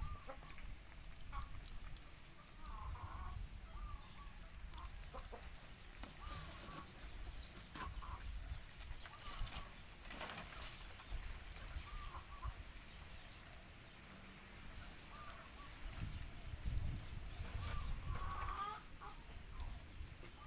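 Short animal calls recurring every second or two, over outdoor background noise with occasional sharp clicks and low rumbles.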